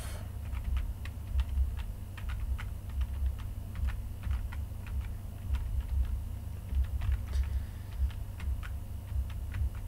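Irregular clicking of computer keyboard keys and mouse buttons during desk work at a computer, over a low hum.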